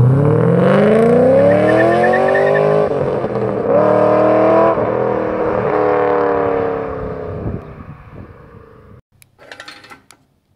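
Holden VE Commodore SS 6.0-litre V8 through an Xforce Varex exhaust with its valve wide open, accelerating hard through the gears: the note rises, drops at each change about three and five seconds in, then fades as the car pulls away into the distance.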